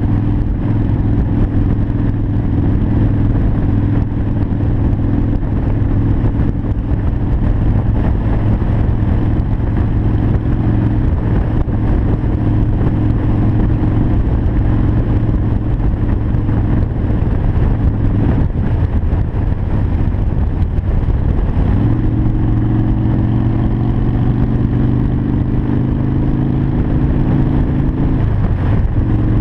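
Harley-Davidson Sportster 1200 Custom's air-cooled V-twin engine running steadily at cruising speed. The engine note loosens around eighteen seconds in, then comes back a little higher about twenty-two seconds in, and shifts again near the end.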